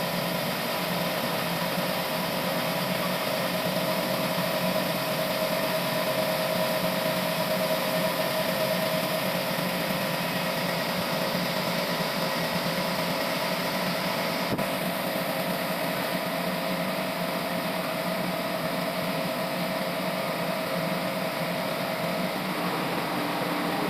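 Sawmill machine running steadily, a constant mechanical drone with a held whine that drops out near the end; a single sharp click about two-thirds of the way through.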